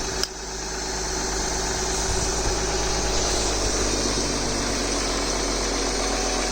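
Car engine idling with a metallic knock, the unexplained noise the owner is trying to trace.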